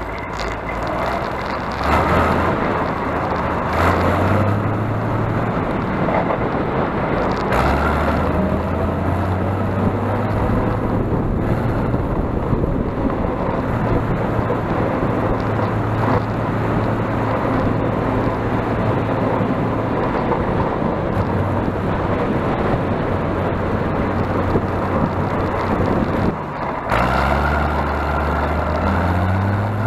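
Six-cylinder Fordson Power Major tractor engine running under way on the road, heard from the driver's seat. The engine speed steps up and down several times, with a brief dip about 26 seconds in before it picks up again.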